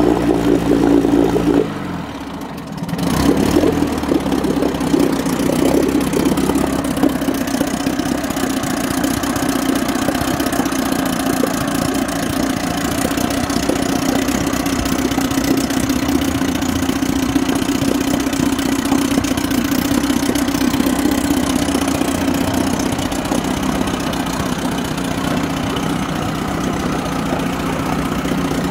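1963 Kiekhaefer Mercury 350 35 hp two-cylinder two-stroke outboard running in a test barrel of water, on its first test run after twenty years laid up. About two seconds in, the engine slows and drops in pitch. A second later it picks back up and settles into a steady idle.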